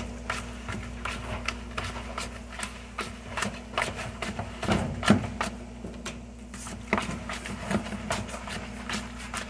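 Metal fork scraping and tapping against a plastic mixing bowl while stirring thick mashed sweet potato pie filling: irregular clicks and scrapes, with a sharper knock about five seconds in, over a steady low hum.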